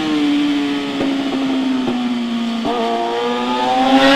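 Suzuki GSX-R600 K8's inline-four engine through an SC-Project full exhaust, its pitch sagging slightly, then stepping up suddenly about two and a half seconds in, after which the revs climb steadily.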